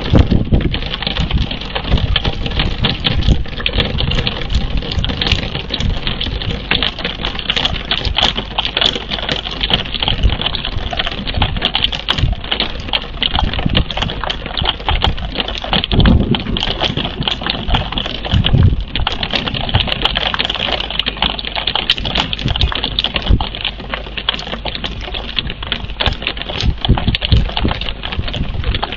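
Rain falling close to the microphone: a dense, irregular patter of drops tapping without pause.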